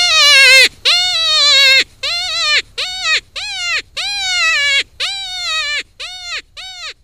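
Reese Outdoors Kenai Kryer predator call playing its first sequence: a string of loud, wavering, bleat-like distress cries, each dropping in pitch at its end, about one to two a second. The cries grow shorter and quieter toward the end.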